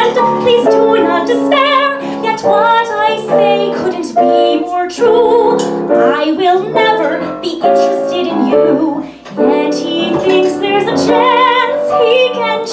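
A woman singing a song into a handheld microphone with piano accompaniment, her held notes carrying vibrato.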